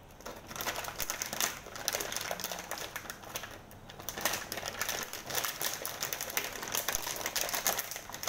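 Plastic packet of dried soup mix crinkling and crackling irregularly as it is handled and opened by hand.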